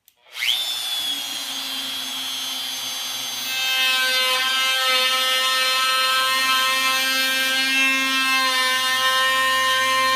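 Handheld DeWalt compact router switched on, its motor whining up to speed and then running steadily. From about three and a half seconds in it gets louder as the flush-trim cut along the plywood edge begins.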